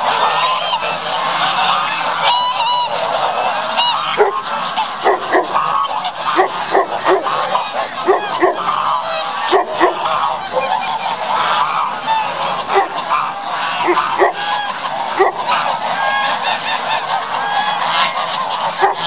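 A large flock of white domestic geese honking, many short calls overlapping at once without a pause.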